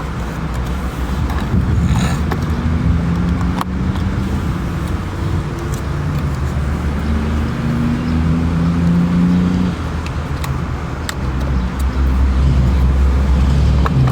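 Motor vehicle traffic: a steady low engine rumble with engine tones that slowly rise and fall, as from cars running and passing, with a few faint clicks.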